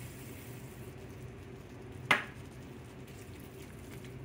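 Onions and carrots cooking gently in a stainless steel skillet just after a splash of water, a soft sizzle over a steady low hum. About two seconds in, one sharp clack of a utensil knocking against the pan.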